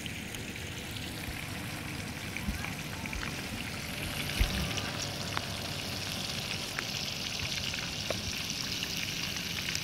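Steady sizzling of fish frying in oil in a pan on a portable butane stove, over a low uneven rumble of wind on the microphone, with a single thump about four and a half seconds in.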